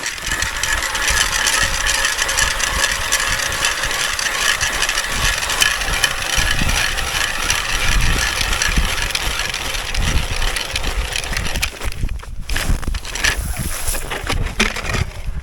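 Small petrol engine of a motorized towing sled (motor-dog) running steadily, with wind buffeting the microphone.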